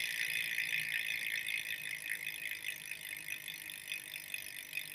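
Freehub of a Bontrager Duster Elite rear wheel on a 2017 Trek Fuel EX8 29er, clicking as the wheel coasts: a fast, even ratcheting buzz from the pawls that slowly gets quieter as the wheel slows.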